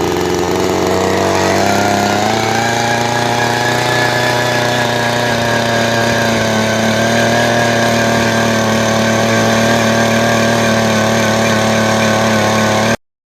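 Post hole digger's 63 cc two-stroke engine running at high speed. Its pitch rises about two seconds in and then holds steady, and the sound stops abruptly near the end.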